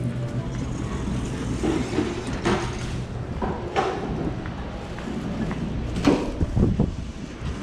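Steady background noise in a building entrance, broken by a few sharp knocks about two and a half, four and six seconds in.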